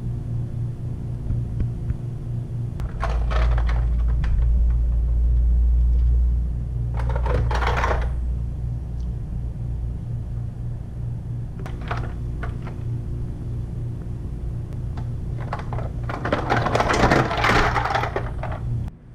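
Intermittent rustling and clattering as a whole raw squid is handled on ice in steel trays, loudest near the end, over a steady low hum.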